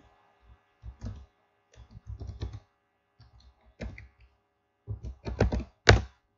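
Typing on a computer keyboard: irregular runs of keystrokes, with the loudest key hit near the end.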